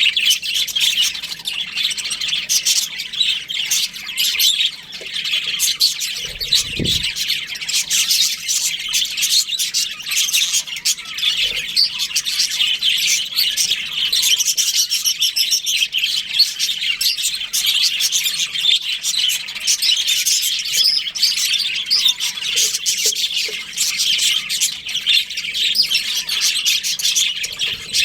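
A flock of budgerigars chirping and chattering without pause, many birds calling over one another.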